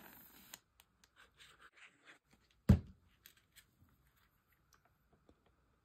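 Paper and card stock rustling and sliding as a layered card panel is handled and set into place for gluing, with one sharp thump on the work table about halfway through, followed by a few faint taps.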